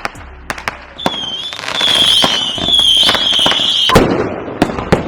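Consumer fireworks going off: shrill whistles, two of them overlapping in the middle, over a string of sharp pops and cracks. The whistling stops with a loud bang about four seconds in.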